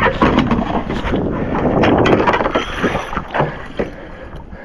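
Wind buffeting the microphone and water sloshing against a fishing kayak, with scattered knocks from handling the rod and reel while a fish is on. It is loudest over the first two seconds or so and eases off toward the end.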